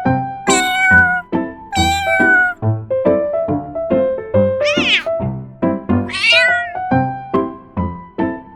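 Domestic cat meowing four times, each meow drawn out and bending in pitch, the third shorter and sharper, over background music of short, evenly repeated notes.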